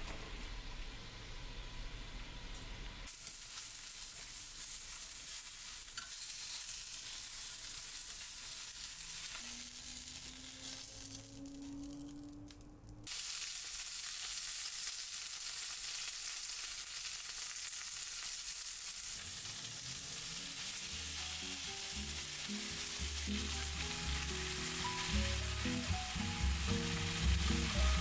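A pan of boiling water as green beans go in; then, after a cut, thin slices of pork sizzling as they fry in a nonstick frying pan, an even hiss that grows louder after a second cut about halfway through. Background music joins the sizzling about two-thirds of the way in.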